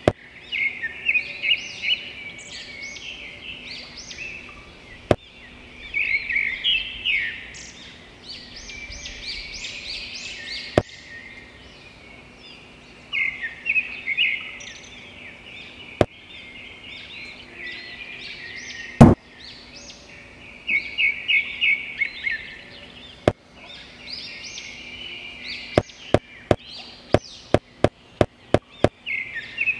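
Small birds chirping in quick repeated phrases, with sharp clicks and knocks scattered through and a quick run of about a dozen clicks near the end, over a faint steady hum.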